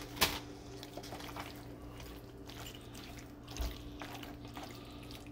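A wooden spoon stirring sauced penne and shredded mozzarella in a nonstick skillet: irregular wet squishing and soft scrapes, with a sharp tap about a quarter second in, over a steady low hum.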